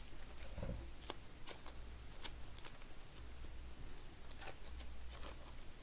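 Faint scattered clicks and light rustles of trading cards being handled and sorted, over a low steady room hum.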